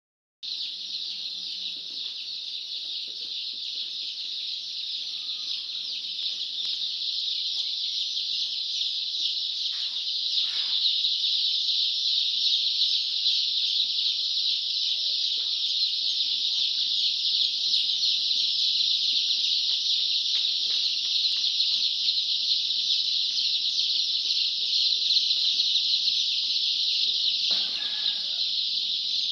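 A large crowd of chicks peeping all at once, a dense, continuous high-pitched chorus of cheeps that grows a little louder after about ten seconds.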